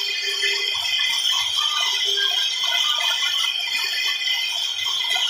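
1325 CNC wood router's spindle running at speed with a steady high whine, its bit cutting a relief carving into a wooden panel with a constant rattling chatter.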